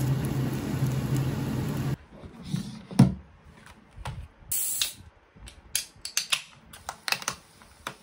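A steady machine-like noise with a low hum that cuts off abruptly about two seconds in, followed by scattered sharp clicks and taps, like typing on a keyboard.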